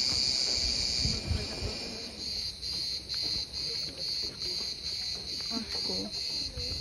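Cicadas buzzing in a loud, high chorus. It is steady at first and from about two seconds in pulses at roughly two to three beats a second.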